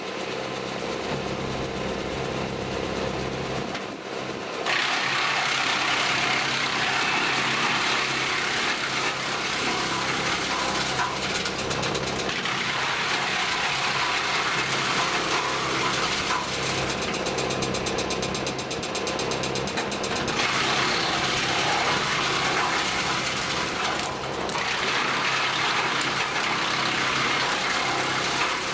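Tractor-driven Jansen BX-62RS wood chipper running steadily. It shreds branches in loud stretches of chipping noise that start about five seconds in, ease off around twelve seconds, and return about twenty seconds in.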